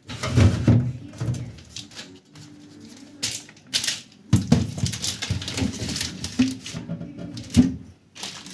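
Plastic fridge boxes and trays being handled and set back into a refrigerator: irregular knocks, clatter and rubbing in two busy spells, the first in the opening second or so and the second from a little after four seconds in.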